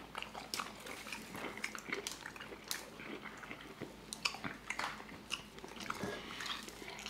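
Chewing and biting from two people eating seafood-boil shrimp, with scattered wet mouth clicks and smacks close to the microphone.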